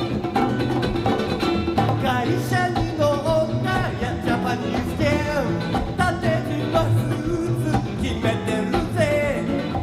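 Guitar music with a voice singing over it from about two seconds in, a live duo recording played back from cassette tape.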